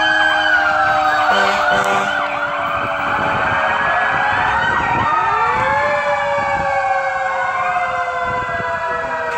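Several emergency-vehicle sirens sounding at once, their pitches sliding up and down across each other, some slow and some fast. Two short low horn blasts come about one and a half seconds in.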